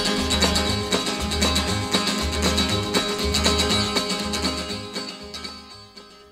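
Country song's instrumental ending: guitar over a low bass note about once a second in a steady rhythm, fading out over the last couple of seconds.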